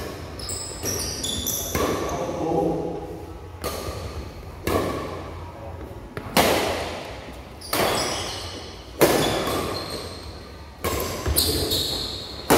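Badminton rackets striking a shuttlecock in a rally: about ten sharp hits, a second or so apart, each echoing in a large hall.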